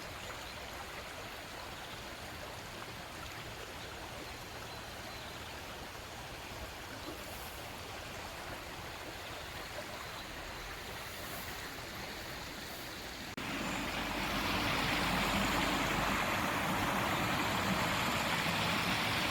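Steady rushing of a flowing stream. About 13 seconds in, a cut switches abruptly to a louder, fuller rush of water.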